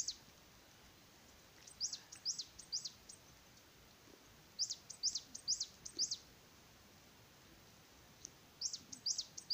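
A small songbird singing a repeated phrase of three or four high, quick, downward-sweeping notes, the phrase coming again every three to four seconds.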